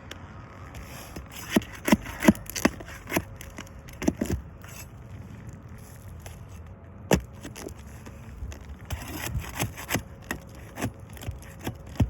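A tool working nails out from under an asphalt roof shingle: a run of irregular scraping clicks and sharp snaps as the fasteners are pried loose.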